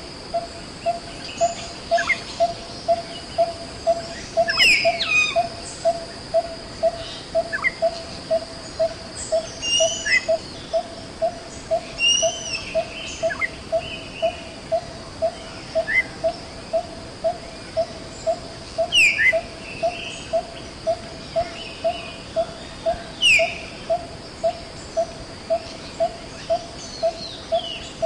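Forest sounds: a single low note repeated evenly about twice a second throughout, over a steady high insect drone, with scattered short bird chirps and quick downward-sweeping calls.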